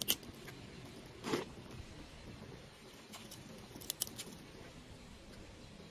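Small dry kindling being laid over a burning tea light, rustling and crackling faintly: a click at the start, a short rustle about a second in, and a few sharp crackles around four seconds in.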